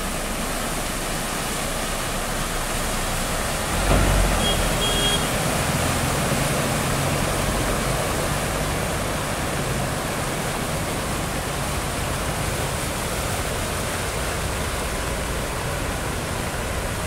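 Steady rush of heavy rain and tyres sloshing through flood water on a waterlogged street. A heavy vehicle's low engine rumble swells in about four seconds in and carries on for several seconds.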